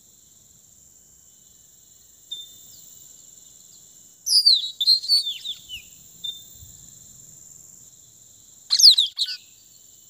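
Blue-rumped parrots giving sharp, high, downward-slurred call notes: a run of them about four seconds in and a louder burst near the end, over a faint steady high hum.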